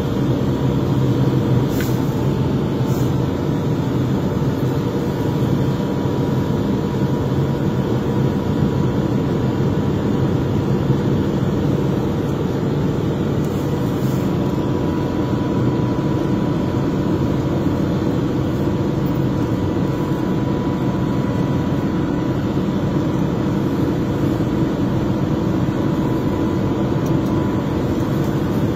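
Victory Sweepers Mark III street sweeper running steadily while sweeping dirt and rock debris, heard from inside the cab: a constant engine drone with a thin, steady whine above it.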